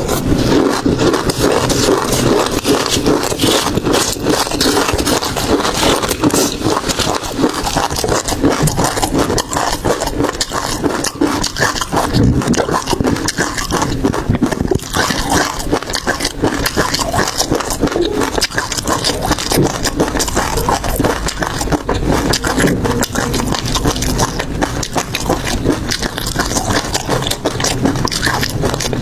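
Close-miked eating of seafood: chewing and crunching in a dense crackle of small clicks.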